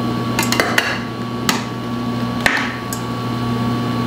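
Perforated metal spoon knocking and clinking against a stainless steel pot while stirring spaetzle in boiling water: a quick run of knocks in the first second, then single sharp knocks at about one and a half and two and a half seconds. A steady low hum runs underneath.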